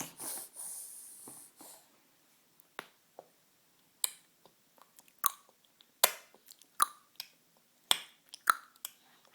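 Baby clucking with his tongue: about seven sharp clicks, spaced roughly a second apart, after a breathy start.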